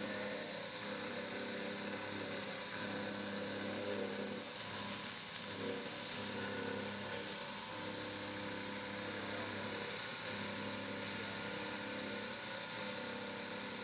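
Jet JTM-830 CNC vertical milling machine running, its end mill cutting a small part: a steady machine hum with several tones that shift about four to six seconds in and again around ten seconds.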